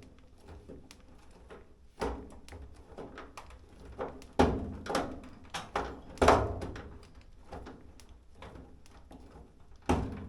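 Knocks, clicks and clatter of a screwdriver and sheet-metal and plastic dryer parts being handled while tight screws are worked loose, with several sharper thunks about two, four, six and ten seconds in.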